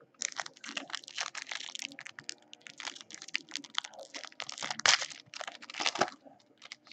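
A foil hockey card pack wrapper torn open and crumpled by hand: dense crinkling and crackling that starts just after the beginning, is loudest about five and six seconds in, and stops shortly after six seconds.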